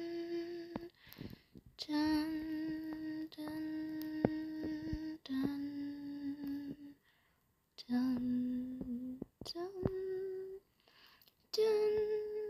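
A person humming a slow tune in long held notes, with short pauses between them, mouthing the music instead of playing it. The melody steps lower through the middle and climbs back up toward the end.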